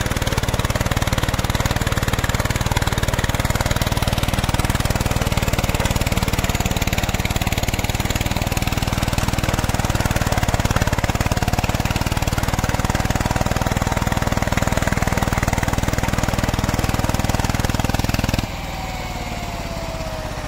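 VST Shakti power tiller's single-cylinder diesel engine running steadily under load while its rotary tiller turns the soil, the newly replaced clutch engaging and driving the rotor. Near the end the sound drops abruptly in level.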